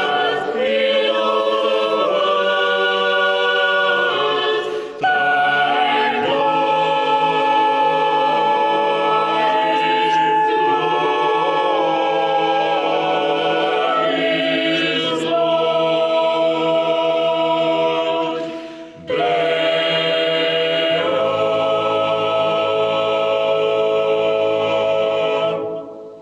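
Unaccompanied choir singing a slow choral piece in long sustained chords, with brief breaks between phrases about five and nineteen seconds in, ending on a held chord that fades away near the end.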